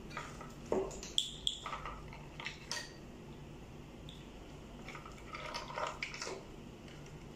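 Plastic wiring-harness connectors and wire bundles on the back of a car navigation head unit clicking and clattering as they are handled, in two bursts of short sharp clicks.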